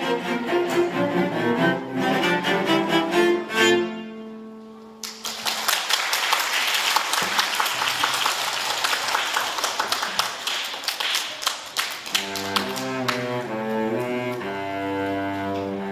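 A school string orchestra playing: a phrase ends on a held note about four seconds in. Then comes a stretch of dense noise without clear notes. Strings, with low cello and double bass lines, start up again near the end.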